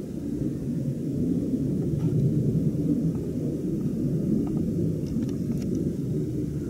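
Wind buffeting the microphone: an uneven low rumble with no pitched tone. A few faint clicks come about five seconds in.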